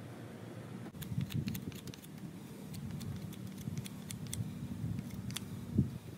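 A knife shaving curls off a wooden stick by hand: a run of short, irregular scrapes and small sharp clicks as the blade bites and the shavings fall.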